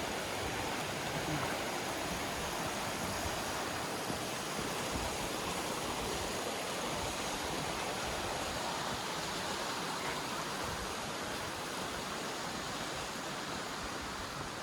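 Steady rushing of water from a waterfall, an even unbroken roar.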